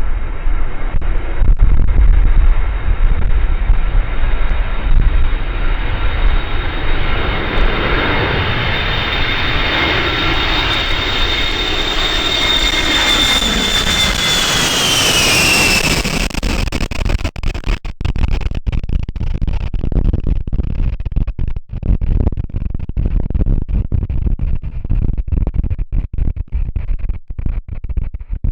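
Boeing E-3A AWACS's four TF33 turbofan engines passing low on landing, a jet rumble with a high whine that drops in pitch about fifteen seconds in as the aircraft goes by, then fades. Strong wind buffets the microphone throughout, and is all that is left near the end.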